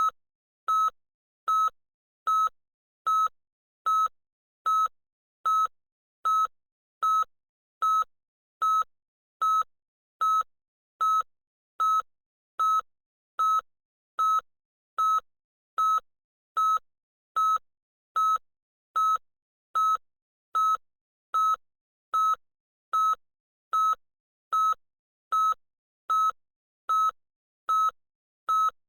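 Electronic beeping: one high, steady tone repeating as short beeps at an even pace, a little more than one a second, with silence between.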